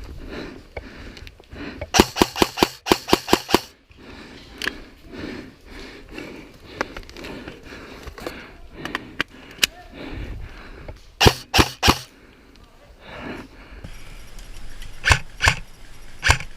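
Airsoft rifle firing: a quick string of about nine shots near the start, three or four loud shots about halfway through, and several spaced shots near the end.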